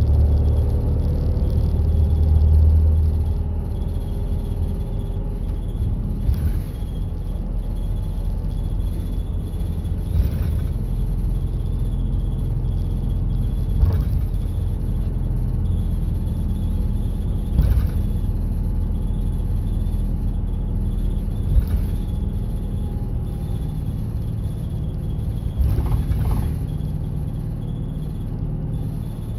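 Route bus running on the road, heard inside the passenger cabin: a steady engine and tyre rumble that is louder in the first few seconds and then settles, with a light knock about every four seconds.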